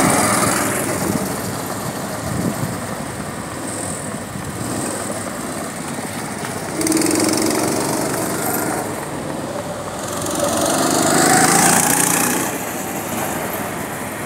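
Small go-kart engines running as karts lap the track, the buzz swelling and fading as karts pass close by, loudest about seven and again about eleven seconds in.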